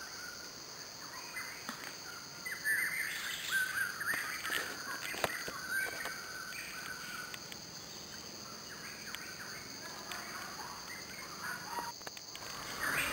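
Birds chirping in short bursts over a steady, high insect drone, with one sharp click about five seconds in.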